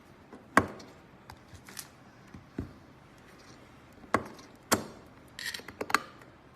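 Sharp clicks and knocks of USB plugs being pushed into the ports of an aluminum USB hub and the hub being handled: four separate clicks, then a quick cluster of smaller clicks near the end.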